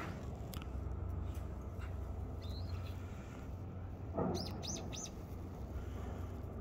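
Small songbird chirping: one short high call, then a quick run of three falling chirps about four seconds in, over a steady low rumble. A brief muffled bump just before the three chirps is the loudest moment.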